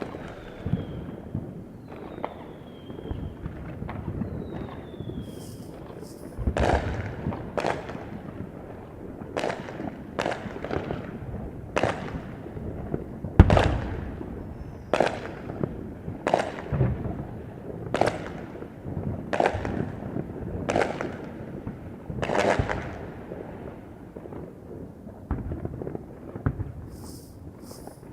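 Fireworks: a few short falling whistles, then a run of sharp bangs from bursting shells, about one every second, the loudest near the middle, with brief hissing fizzes.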